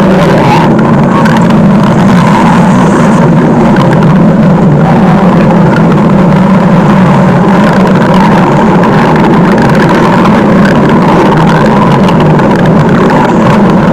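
Stomach growling sound effect: a loud, unbroken, low rumble that keeps going without a pause.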